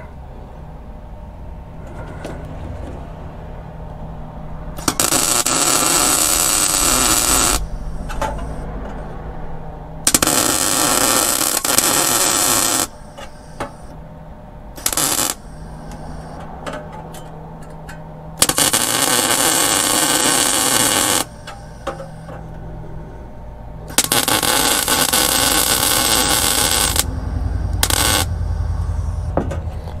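MIG welder laying plug welds in sheet steel, joining a subframe connector to a 1968 Mustang's floor and rail: four runs of steady arc crackle, each two to three seconds long, plus two brief tacks. A low hum sits under it all.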